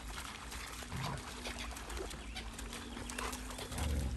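Dogs splashing and padding through shallow water and over wet gravel, with a dull low thump near the end.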